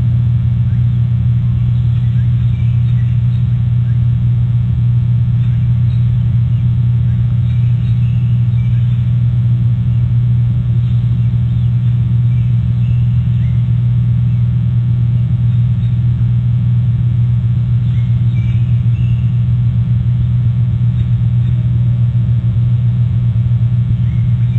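Steady low electrical hum from a nest camera's audio feed, unchanging throughout, with faint short high chirps now and then.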